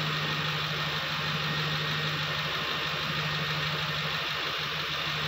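V8 engine of a 2010 Ford Expedition idling steadily, running again after a no-start fault.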